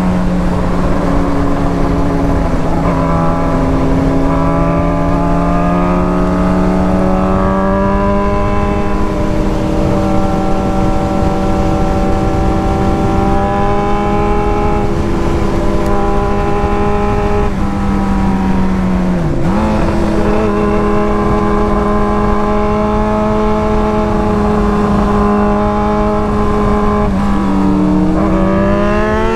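Motorcycle engine running at road speed, its pitch slowly rising as it pulls, briefly dipping about two-thirds of the way through, then climbing steeply near the end as it accelerates. Wind rushes over the microphone.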